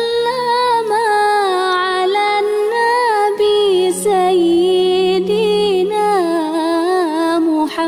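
Background music: a slow melody that bends and slides in pitch, over steady low held tones.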